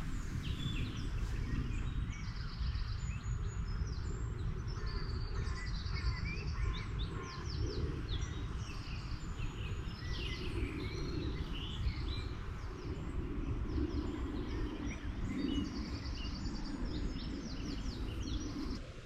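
Many birds chirping and trilling, with short calls overlapping throughout, over a steady low rumble.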